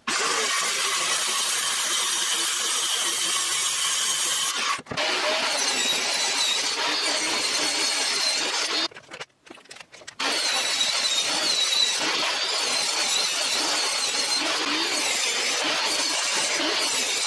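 Power saws cutting plywood: a handheld circular saw at first, then a benchtop table saw, each a loud steady whir with a wavering high blade whine. The sound drops out briefly about five seconds in and again for about a second near the middle, where one cut ends and the next begins.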